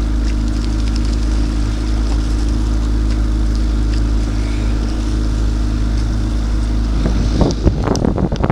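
Outboard motor of a boat pacing a rowing single running steadily at a constant, low, even hum. About seven seconds in, a louder, uneven sound breaks in over it.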